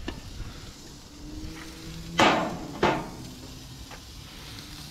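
Two sharp metal clanks about two seconds in, a little over half a second apart, with a brief ring: an aluminium sheet pan being set down against the steel frame of a gas grill.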